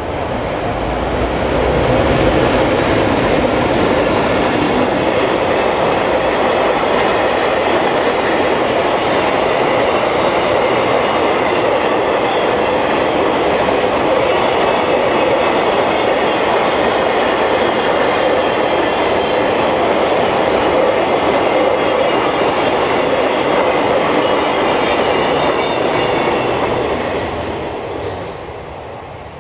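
Freight train passing at speed: an EF510 electric locomotive, then a long string of container flatcars, with the steady rumble and clatter of wheels on the rails. The sound fades away near the end as the last wagons pass.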